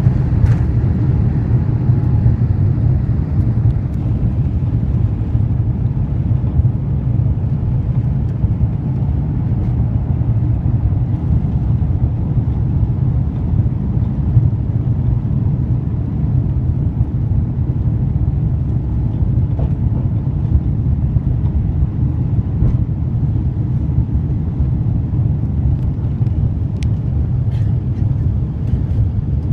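Airbus A350-900 cabin noise during takeoff and initial climb: a steady, deep rumble of the Rolls-Royce Trent XWB engines and rushing air, heard from inside the cabin.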